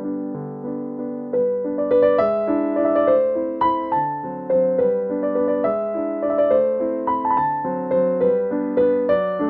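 Background piano music: a gentle melody of single struck notes and chords, each fading away, at an even pace.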